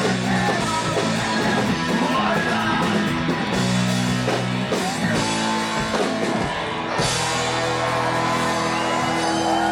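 Ska-punk band music: electric guitar chords and drum kit with singing.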